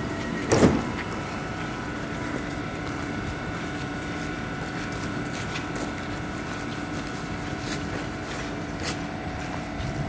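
Electric commuter train standing at the platform, its onboard equipment giving a steady hum with a thin high whine; a single sharp knock about half a second in, with a few faint clicks later.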